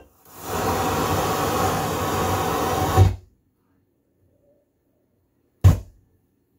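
Marantz 2285B receiver's FM tuner giving a steady hiss of static between stations while the dial is turned, cut off about three seconds in by a thump as the audio mutes. A single short thump comes near the end.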